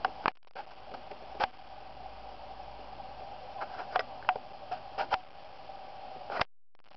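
Steady background hiss with a faint hum, broken by scattered sharp clicks and ticks, several of them close together in the second half. The sound drops out completely twice, briefly just after the start and for about half a second near the end.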